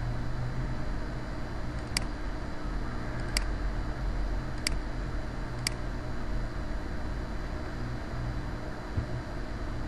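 Computer mouse button clicking four times, a few single clicks a second or so apart, over a steady low hum and hiss.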